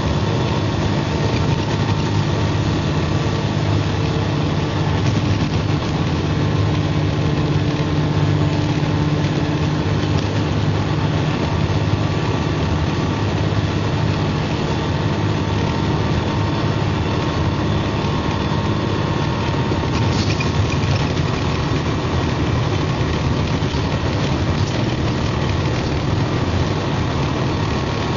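MCW Metrobus double-decker bus engine running steadily, heard from on board.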